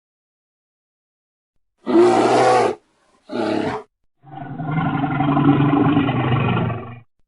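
Big cat roaring: two short roars about two and three seconds in, then a longer roar of about three seconds that stops shortly before the end.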